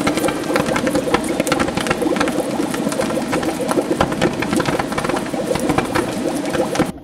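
Underwater stick-welding arc crackling and bubbling steadily, dense fast crackle over a low steady hum. It stops abruptly near the end.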